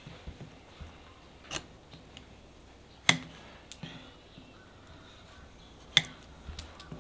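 Hoof nippers cutting the wall of a horse's hoof: a series of sharp snaps. The two loudest come about three seconds apart, with fainter clicks between them.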